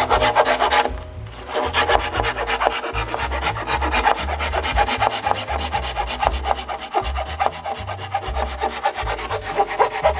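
Rapid, repeated rasping strokes of a tool scraping along wood, most likely bamboo being shaved or smoothed, over background music.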